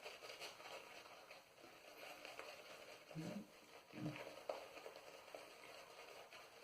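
Omega 10075 boar shaving brush swirled in a tub of shaving soap, a faint wet crackling as the lather is worked up; the lather is still dry and thirsty for more water. Two short low sounds come about three and four seconds in.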